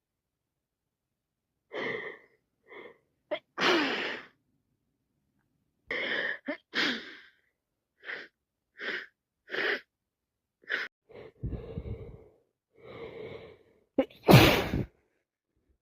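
A woman with a cold sneezing again and again, with short gasping in-breaths between the sneezes; the loudest sneeze comes near the end.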